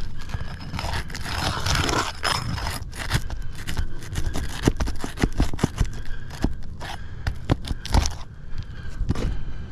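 Scraping and crunching on the roof's shingles, which are brittle, with a dense run of sharp clicks and knocks and a louder rasping scrape about one to two and a half seconds in.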